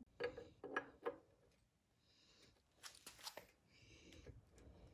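Faint clicks and light rubbing as a pinion yoke is handled and slid onto the splined pinion shaft of a Dana 44 axle. There are a few short sounds in the first second and a few faint ticks near the middle.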